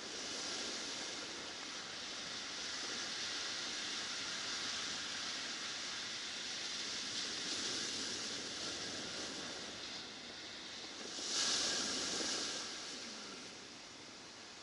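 Ocean surf breaking and washing up a pebble shore, a steady hiss that swells louder about eleven seconds in as a wave comes in.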